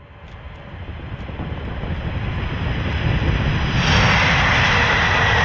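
Airplane engine growing steadily louder over about four seconds, then holding with a steady high whine.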